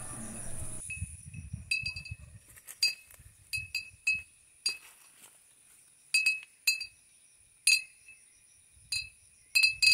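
Hanging glass beer bottles knocked together by the wind, with a small thick bottle between them striking the others. Irregular clinks, a few at a time, each ringing briefly, like a bell being rung. This is a wind-driven bottle chime hung to scare wild boar and monkeys off crops.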